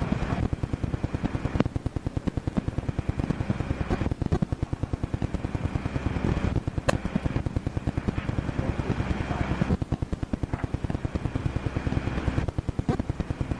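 Rapid mechanical clattering, many sharp strikes a second in an even run, with a few short breaks, the longest about ten seconds in.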